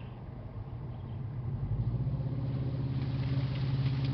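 Stock 4x4's engine rising about a second and a half in and then held at steady high revs, the throttle floored in reverse to back the vehicle out of a mud hole it is stuck in.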